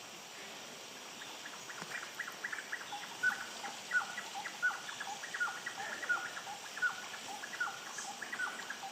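A bird calling: a run of short, sharp notes that drop in pitch, repeated about one to two times a second, starting about a second in, over a faint steady hiss.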